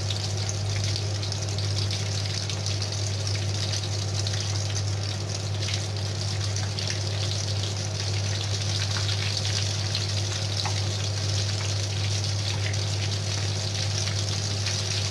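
Breaded stuffed potato balls deep-frying in hot oil in a pan: a steady sizzle and bubbling, with a low hum underneath.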